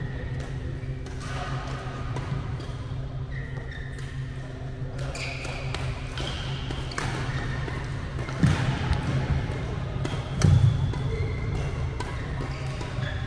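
Badminton rally: sharp clicks of rackets hitting the shuttlecock and short high squeaks of shoes on the court floor over a steady low hum, with two louder thuds about eight and ten and a half seconds in.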